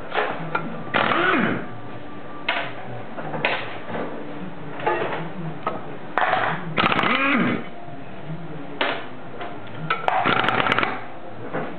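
Electric impact driver run in about ten short bursts, tightening the clutch pressure-plate bolts onto the flywheel of a Subaru boxer engine. The longer bursts have a rapid hammering, and some rise and fall in pitch as the motor spins up and down.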